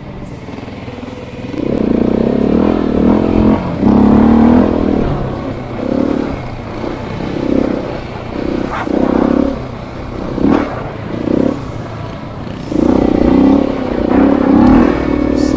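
Husqvarna dirt bike's engine revving in repeated surges and drops as the throttle is opened and closed, with a couple of sharp clattering knocks from the bike partway through.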